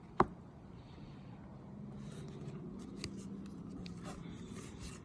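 Trading cards being handled: a sharp tap about a quarter second in, then quiet rustling with a couple of light clicks.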